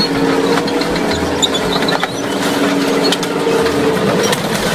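A tracked tank running as it climbs onto and crushes a minivan: a loud, steady engine and track noise with a droning hum and scattered sharp clicks and cracks.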